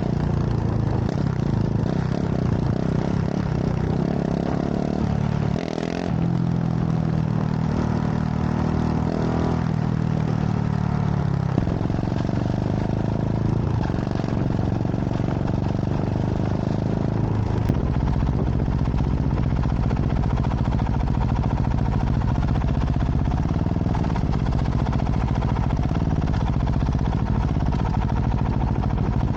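KTM 690 SMC R's single-cylinder engine through a full LeoVince exhaust, under way: the revs climb, with breaks at gear changes about six and twelve seconds in, then the engine runs at a steadier pace.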